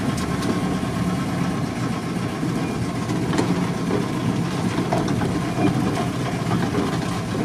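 Steady engine and running noise heard from inside the cab of a Volkswagen Transporter T3 van rolling slowly along a rough dirt track, with a few small knocks and rattles.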